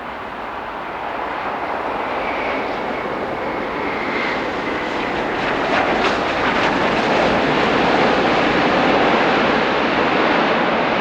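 Jet airliner's engines, a broad steady rush that grows gradually louder as the aircraft approaches, with a faint high whine in the first few seconds.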